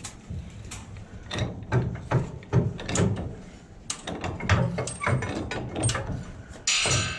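Metal hand-tool work on a streetcar truck's brake rigging: a string of irregular clicks and knocks as a long-handled wrench is worked while a brake shoe is fitted, with a brief scraping rasp near the end.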